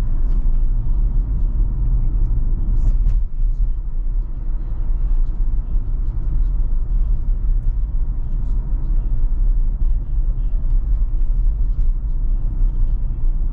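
Steady low road and tyre rumble inside the cabin of a Tesla electric car driving at about 30 mph, with no engine note.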